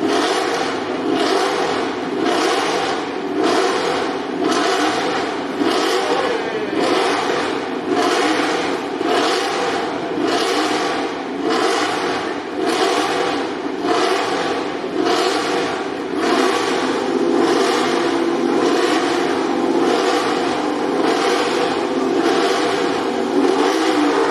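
MotoGP racing motorcycle engine running, swelling and easing in a regular pulse about one and a half times a second, with a steady thin whine above it.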